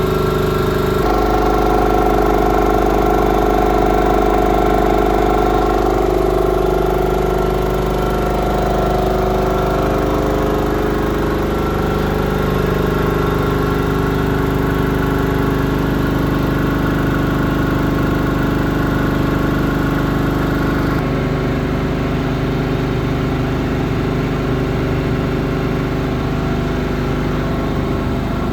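Hatlapa V200 marine air compressor running steadily on a test bench: a loud, continuous mechanical drone with a steady hum. Its sound changes abruptly about a second in and again about three-quarters of the way through.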